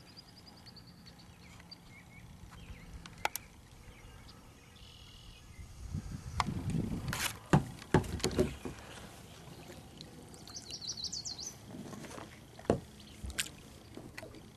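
Kayak being paddled: the paddle dips and splashes and knocks against the hull in a loud cluster in the middle, with a few sharp single knocks elsewhere. A small bird trills twice, near the start and again later.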